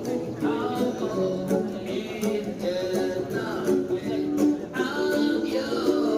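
Music: a plucked acoustic guitar with a voice singing over it.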